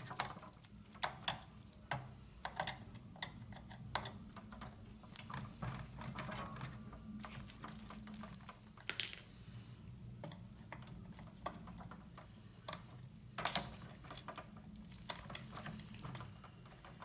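Faint, scattered clicks and taps of a screwdriver working three screws out of a Tamiya CW01 RC truck chassis, with small plastic parts knocking, over a steady low hum.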